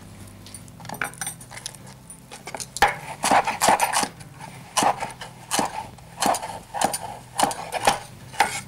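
Large kitchen knife chopping celery sticks on a wooden cutting board: a run of irregular knife strikes, roughly one or two a second, beginning about a second in.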